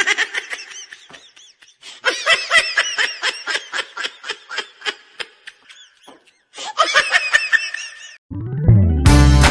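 Dubbed-in laughter sound effect: rapid, repeated high-pitched laughing bursts with a short break about six seconds in. Upbeat music with a heavy bass cuts in near the end.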